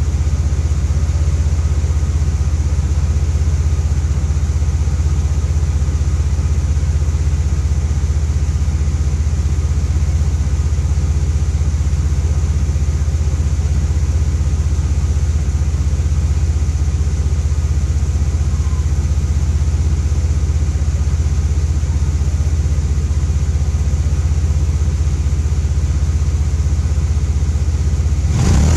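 Engine of a Vortech-supercharged SUV running steadily at idle, a deep even hum with a steady high whine over it.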